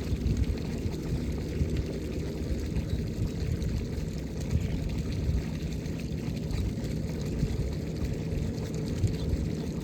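Combine harvester running steadily while harvesting rice: a continuous low rumble of engine and threshing machinery, with no change.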